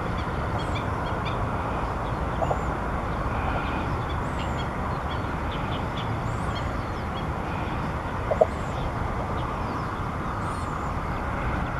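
Faint, short, high bird chirps scattered over a steady low rumble, with a brief louder call about two and a half seconds in and another, the loudest, about eight seconds in.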